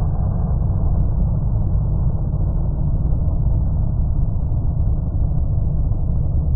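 A loud, steady, muffled low rumble on the film's composed soundtrack, unbroken and without rises or falls in pitch.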